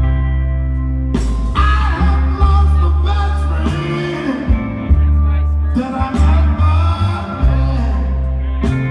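Soul band playing a slow song live, with a male singer's voice coming in about a second in over held bass notes and drum and cymbal hits.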